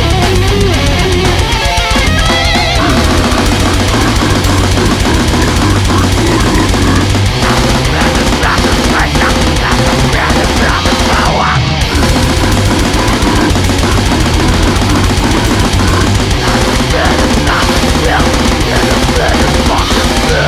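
Loud heavy metal music by a grindcore band: distorted electric guitars and bass over fast, dense drumming.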